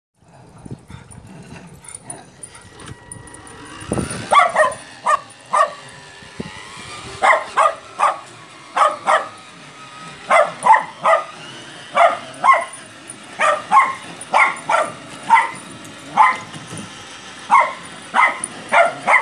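A miniature schnauzer barking repeatedly, often two barks in quick succession, starting about four seconds in and keeping up for the rest of the time.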